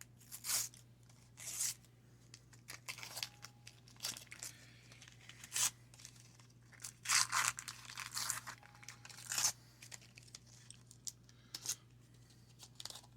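Wax-paper wrapper of a baseball card pack being torn open and crinkled, in a series of short, irregular rips and rustles.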